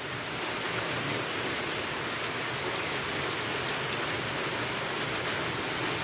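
Steady hiss of a saucepan of cocoa heating on a gas burner, an even noise with no breaks.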